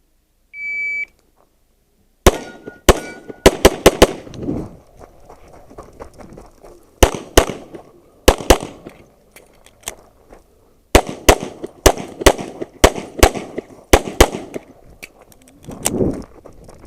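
Electronic shot timer gives one short high beep, then a handgun fires strings of rapid shots, in quick pairs and bursts with short pauses between them, the start signal and run of a practical-shooting stage.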